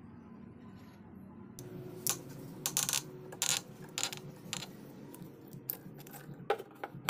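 Irregular sharp metallic clicks and clinks, metal tool parts knocking together as a jaw puller is handled and fitted onto the armature shaft of a Makita 9553B angle grinder.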